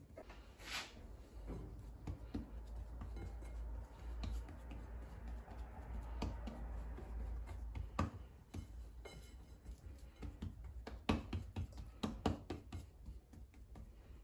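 Hands working at a kitchen counter: soft rubbing and handling, with a few sharp knocks, the loudest about eight and eleven seconds in.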